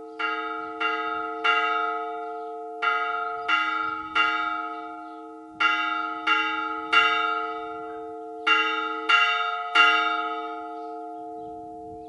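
Church bells hand-rung by a bell ringer in four groups of three strikes, about two-thirds of a second apart within each group. Each strike rings on with long steady tones that fade away near the end.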